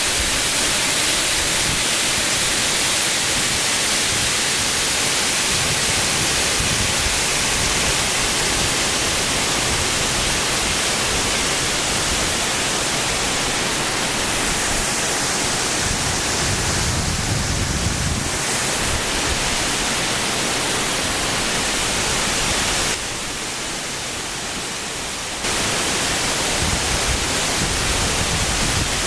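Waterfall: a steady rush of falling water. It drops in level for a couple of seconds near the end, then comes back.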